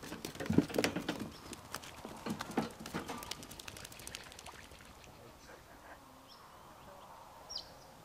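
A wire carry cage rattling and clattering as a Eurasian coot is tipped out of it, dying away after about three and a half seconds. A few short, high chirps from other birds follow.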